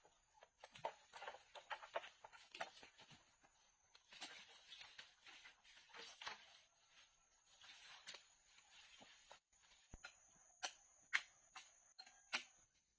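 Faint, irregular clicks, taps and rustling, with a few sharper clicks near the end.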